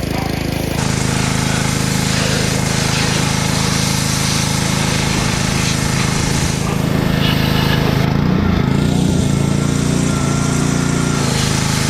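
Small petrol engine running steadily with a hiss over it. Its note steps up a little under a second in and wavers in pitch a few seconds before the end.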